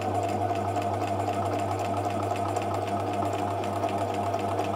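Bernina 1008 sewing machine stitching steadily at speed through a scrap of fabric: motor hum under a rapid, even needle rhythm. The machine has been freshly cleaned and oiled, and sounds much nicer, running smoothly.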